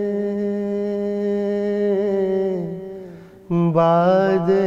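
A man singing an Urdu ghazal, holding one long steady note that fades away about three seconds in, then starting the next phrase with wavering, ornamented turns.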